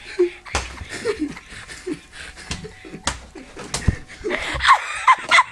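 Laughter, soft and broken at first, then rising into strong bursts of laughing near the end, with a few sharp knocks and rustles from the phone being handled.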